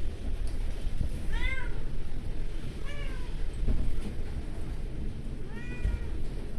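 A cat meowing three times, short calls that rise and fall in pitch, over a steady low rumble.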